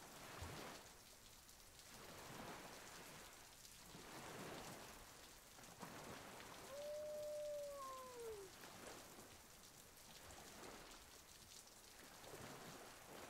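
Spoon stylus rubbing along the carved cut lines of vegetable-tanned leather to press down the bevels: a faint scratchy hiss that swells and fades with each stroke, about once a second. A brief tone falling in pitch sounds once about seven seconds in.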